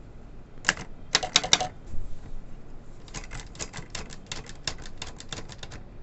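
Torpedo Classic typewriter being typed on: keys strike the paper with sharp clacks. There is a single stroke, then a quick cluster of strokes, then a steady run of keystrokes about six a second for nearly three seconds.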